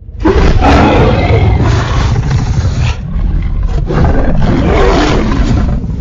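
Allosaurus roar sound effect: loud, drawn-out roaring with a wavering pitch over a deep rumble, breaking briefly about halfway through and then going on.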